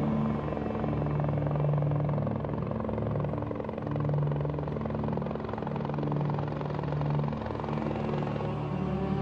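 A steady, rapidly pulsing mechanical drone of the kind helicopter rotors make, over low held notes of background music.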